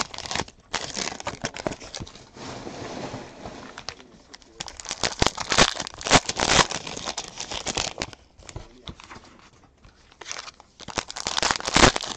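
Foil wrappers of Donruss basketball card packs crinkling and tearing as packs are ripped open and the cards handled. The sound comes in irregular bursts, loudest about five to seven seconds in and again near the end.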